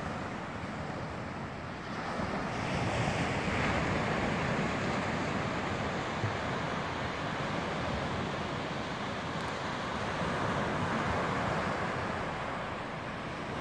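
Baltic Sea surf washing onto a sandy beach, a steady rushing that swells louder about two seconds in, with wind buffeting the microphone.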